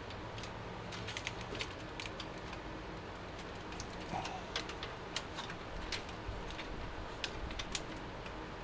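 Light, irregular clicks and taps of PC power and fan cables and their plastic connectors being handled and routed behind a PC case's motherboard tray, over a steady low hum.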